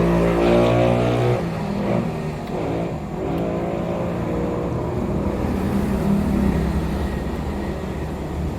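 Motor vehicle engine running, loud for the first second and a half, then dropping to a quieter steady drone.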